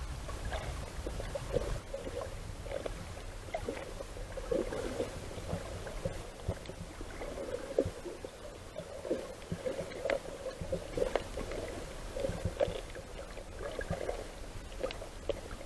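Water gurgling and crackling, heard as irregular short pops over a low rumble, the way water sounds when recorded underwater.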